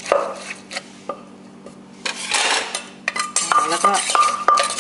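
Wooden pestle working in a clay mortar for som tam: scattered light knocks, a scrape about two seconds in, then a quick run of knocks about three a second, each with a short ring.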